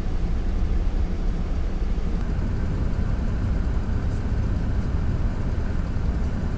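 Steady low rumble inside a vehicle's cab with the engine running.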